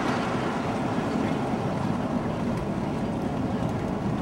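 Steady road and engine noise of a moving vehicle, heard from inside its cabin.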